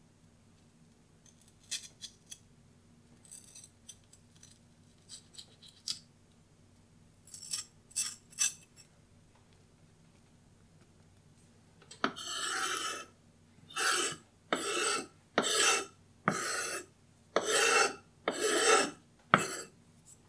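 Chef's knife blade scraped across a wooden chopping board about eight times in quick succession in the second half, each stroke starting with a tap, sweeping chilli seeds and pith into a pile. Before that, a few faint light scrapes and taps as the knife tip and fingers work seeds out of the chilli.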